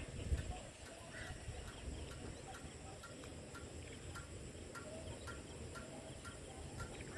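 Outdoor ambience with a steady high insect drone and a short call repeated about twice a second, over a low rumble.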